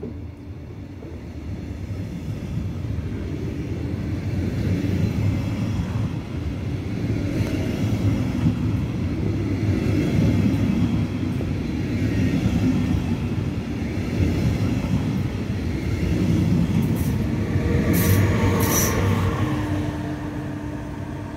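A metronom push-pull train of double-deck coaches rolls past, with a class 146 electric locomotive at the rear: a loud steady rumble of wheels on rail that builds over the first few seconds. A few brief high-pitched squeaks are heard as the locomotive goes by near the end.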